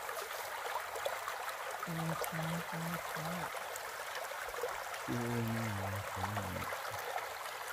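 Shallow, muddy stream flowing fast over rocks and stones: a steady hiss of running water. A person's voice is heard briefly twice, about two and five seconds in.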